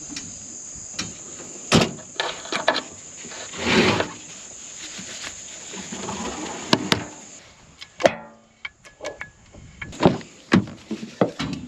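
Steady high insect buzz that stops about seven and a half seconds in, under a scattered series of sharp knocks and clanks from metal being handled.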